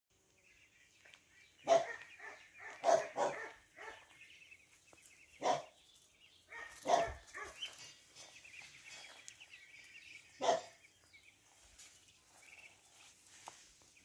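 Ducklings peeping in a steady high chatter, while a dog barks about six times, singly and once in a quick pair; the barks are the loudest sounds.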